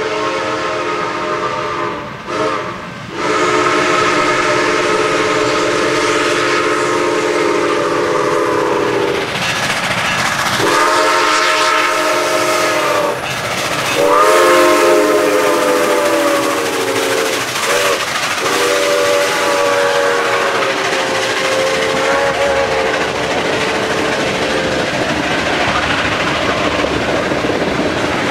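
Chinese QJ-class 2-10-2 steam locomotive sounding a whistle of several notes at once as it approaches and passes, in a run of long blasts broken by a couple of short ones. The whistle stops about 25 s in, leaving the clatter of the train's wheels on the rails as the tank cars roll past.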